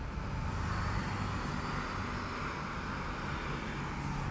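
Steady outdoor background noise: a low engine rumble under an even hiss, with no distinct events.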